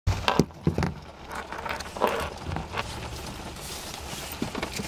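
A few sharp knocks in the first second, then rustling and handling noise as a person moves about in a car seat and adjusts her clothing and hair.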